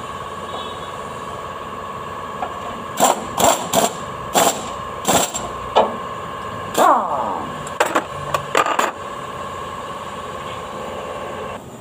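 Pneumatic impact wrench firing in about ten short bursts over some six seconds, one of them winding down in pitch, over a steady machine hum that cuts off near the end.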